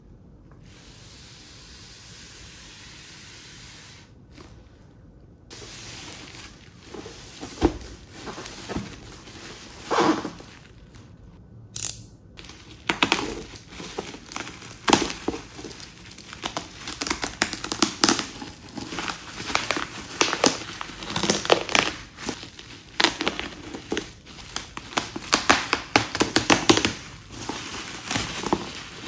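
Hands tearing and crinkling a plastic bubble-wrap mailer bag. The first few seconds hold only a steady faint hiss. Scattered rustles and knocks follow, then dense, irregular crackling of the plastic from about halfway through.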